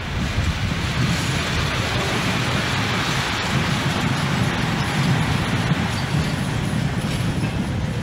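A DB Class 103 electric locomotive and its passenger coaches passing close by: a steady rumble of wheels on rail under a wash of running noise, with a few faint clicks.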